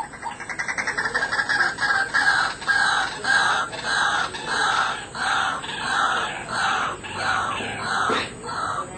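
White-breasted waterhen calling: a fast stutter at the start, settling into a loud, harsh 'kuak-kuak' repeated about twice a second.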